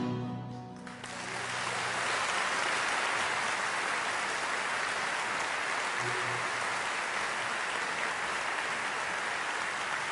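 Music ends about a second in, and a concert audience then applauds steadily.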